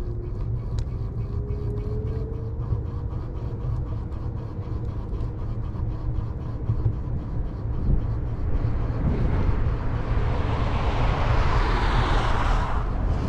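Outdoor traffic noise: a steady low rumble, a distant engine drone slowly rising in pitch over the first few seconds, and a passing vehicle's rush that swells from about two-thirds of the way through and cuts off sharply near the end.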